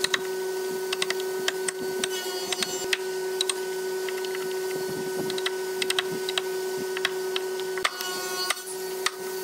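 Wooden mallet knocking on a wood chisel, irregular sharp taps as a mortise is chopped into a hardwood board, over a steady mechanical hum.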